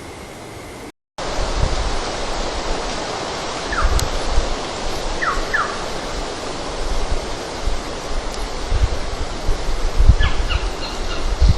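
Raw outdoor night recording: a steady rushing hiss with low gusty thumps on the microphone, broken by a brief dropout about a second in. A few short, high chirps sound over it, two close together near the middle and a cluster near the end.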